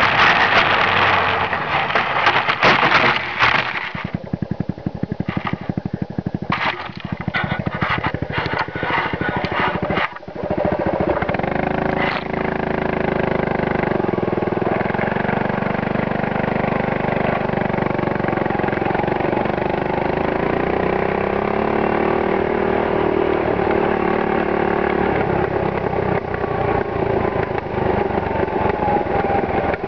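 Suzuki LT185 quad's single-cylinder four-stroke engine running as it is ridden. For the first ten seconds or so it is broken up by wind and knocking on the microphone; from about twelve seconds in the engine runs steadily, its pitch rising and falling gently with the throttle.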